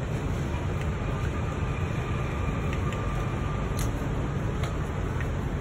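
Steady low background rumble, with a few light clicks of hand tools against metal engine parts, the sharpest near the middle.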